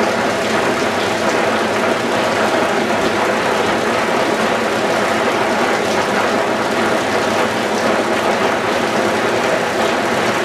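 Steady din of a lollipop cooling conveyor and its electric fans running, with a fine rattle of lollipops sliding down the chute into a plastic crate.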